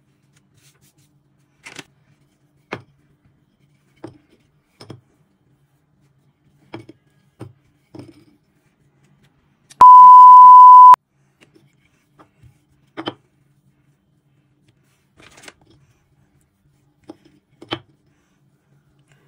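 A loud, steady beep tone lasting about a second, about halfway through, like a censor bleep. Around it are scattered faint taps and clicks from handling things on a work surface.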